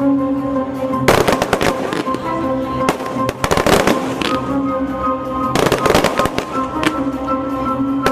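Cartoon soundtrack: dramatic background music with repeated bursts of crackling sound effects, coming in clusters about every second and a half.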